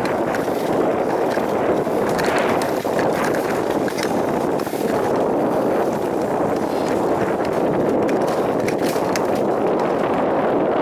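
Bicycle rolling fast along a dirt single-track trail: a steady rush of tyre and wind noise, with scattered rattles and clicks as it goes over bumps.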